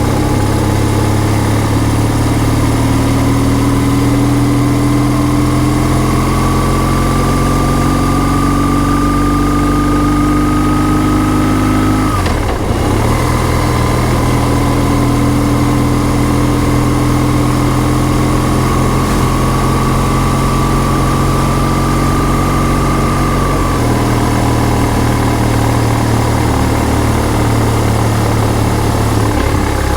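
BMW R1150R's boxer twin engine pulling steadily on the road, its pitch climbing slowly. It dips sharply at a gear change about twelve seconds in, climbs again, and steps down once more about twenty-four seconds in.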